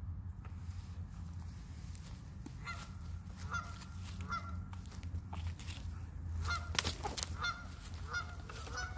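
A flock of Canada geese honking: scattered single honks at first, coming thicker and more often in the second half.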